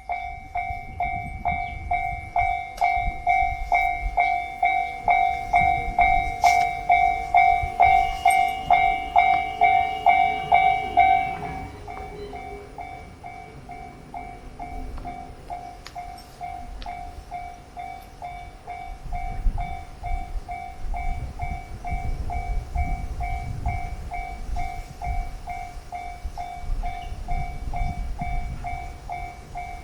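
Japanese railway level-crossing warning bell ringing its rapid, evenly repeated "kan-kan" on a single pitched tone. About eleven seconds in the bell drops to a lower level. From about twenty seconds a train's low rumble runs underneath it.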